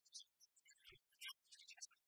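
Near silence, with faint scattered high-pitched ticks.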